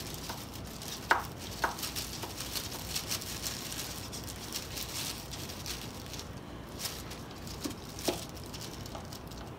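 Quiet handling noise from rubber-gloved hands working the epoxy-coated pieces of a wooden plane tote over a plastic bag: a faint crinkling patter with a few small clicks, about a second in, again shortly after, and near the end.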